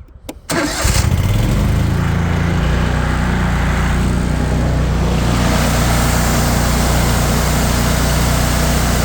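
Cub Cadet Tank L48 zero-turn mower's 694 cc Kohler V-twin starting on choke: two clicks, then it cranks and catches within about a second. It changes note at about two and a half seconds and then settles into a steady run.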